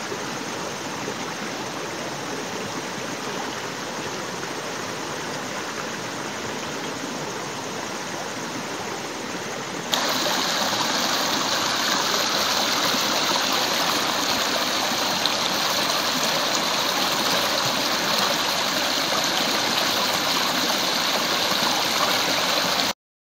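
Shallow rocky stream, a steady rush of flowing water. About ten seconds in it turns suddenly louder and brighter as the water pours through a small rapid between boulders, and it cuts off abruptly just before the end.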